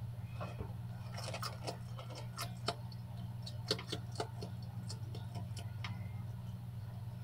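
Bearded dragon crunching superworms: irregular sharp clicks and crunches, a dozen or so over a few seconds, with a steady low hum underneath.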